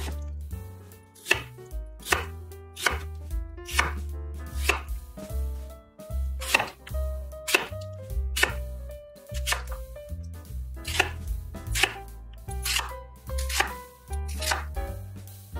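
Santoku knife chopping through radish, apple and onion onto an end-grain wooden cutting board, one sharp knock of the blade on the board about every second.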